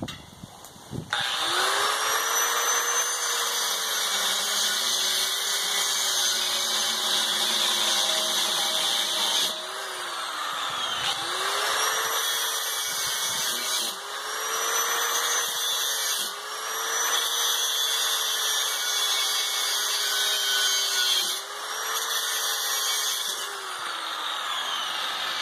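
Corded angle grinder cutting into a small steel tank: the motor spins up about a second in, grinds with a steady whine and hiss, slows and picks up again several times, and winds down with a falling whine near the end.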